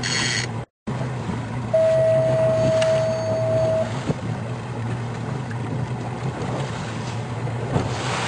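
Boat motor running steadily at trolling speed, a low even hum. A single steady tone sounds for about two seconds near the start, and the sound drops out for a moment just before that.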